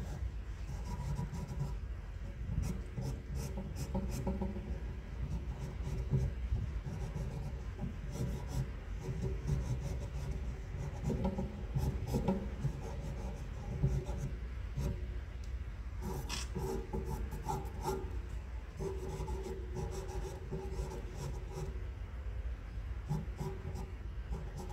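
Faber-Castell pastel pencil scratching across Strathmore charcoal paper in many short hatching strokes.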